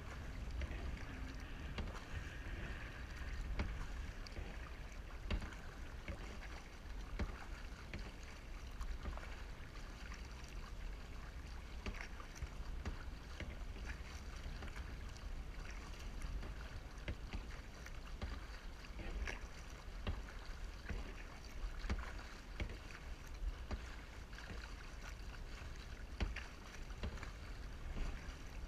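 Kayak paddle strokes: the blades dip and splash into choppy lake water on alternating sides, with water sloshing at the bow, as a run of irregular splashes over a steady low rumble.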